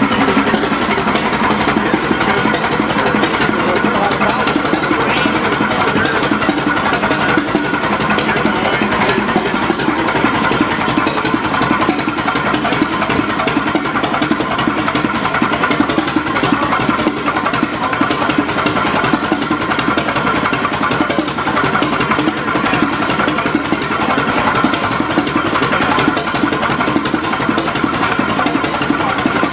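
An old Holt multi-cylinder stationary engine running steadily with a rapid, even beat.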